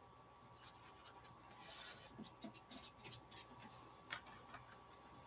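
Faint scratchy strokes of a watercolor paintbrush on watercolor paper, with a light tick about four seconds in.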